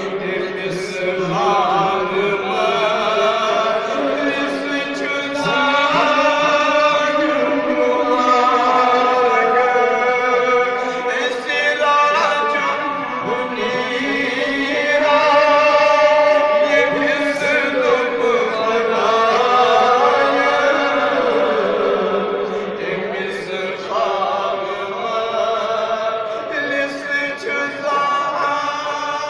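Chanted singing: a melody sung in long, bending held lines that carry on without a break.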